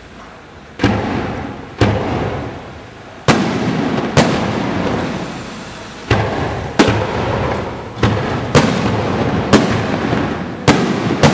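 Fireworks display: firework shells bursting in a rapid series of about ten sharp bangs, starting about a second in, each bang trailing off into a long rumbling echo.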